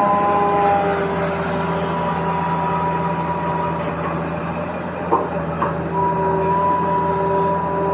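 Small electric motor of a toy vehicle running steadily with a whine, with two short clicks about five seconds in.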